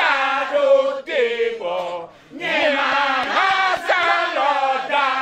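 A group of women and men chanting a song together, several voices in one line, sung in phrases broken by short pauses.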